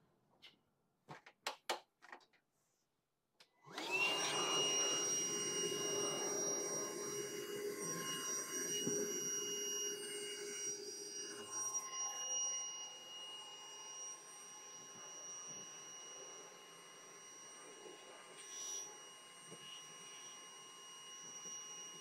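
Cordless handheld vacuum switched on about four seconds in and running steadily with a high whine, its nozzle worked around inside a gas furnace's burner compartment to clean out dust. A few light handling clicks come before it starts, and it runs a little quieter in the second half.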